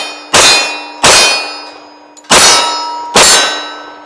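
Four 10mm pistol shots at steel targets, about a second apart and unevenly spaced. Each shot is followed at once by the steel plate ringing for about a second.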